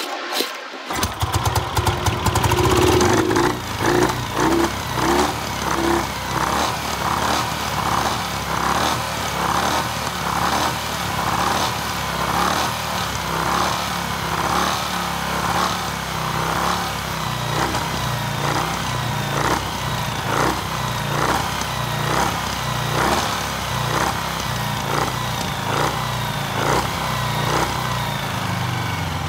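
Norton Dominator parallel-twin motorcycle engine catching about a second in and then running, with a regular sharp knock or pulse about three times every two seconds.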